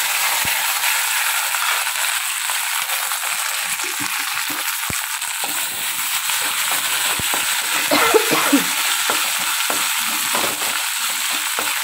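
Dried red chillies, garlic and coriander seeds sizzling steadily in hot oil in a kadai, with a few light knocks.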